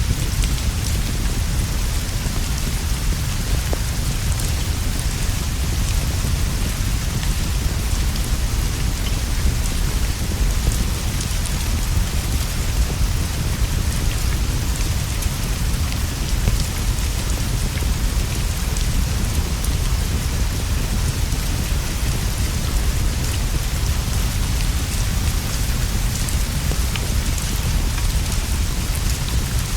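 Steady rain falling, with a deep continuous rumble underneath and scattered faint ticks of drops.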